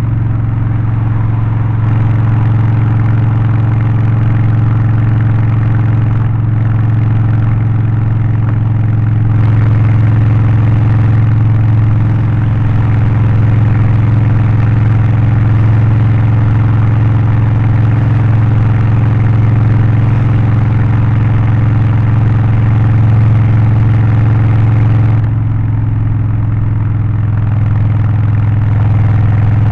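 Harley-Davidson Low Rider ST's Milwaukee-Eight 117 V-twin, Stage 1 tuned with aftermarket exhaust and air filter, running steadily with a deep, even exhaust note that grows a little louder about a third of the way in and eases back near the end.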